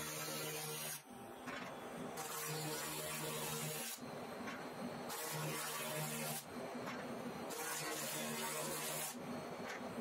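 A 2000-watt handheld laser rust cleaner firing on a rusty iron gear wheel as it strips the rust: a steady buzzing hum with a hiss over it. It cuts out briefly a few times as the beam is stopped and restarted.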